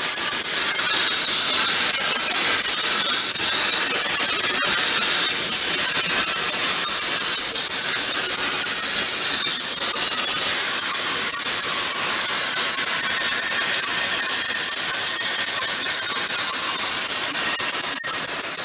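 Plasma torch on a CNC gantry drilling and cutting machine cutting through steel plate: a loud, steady hiss with a high-pitched whine in it.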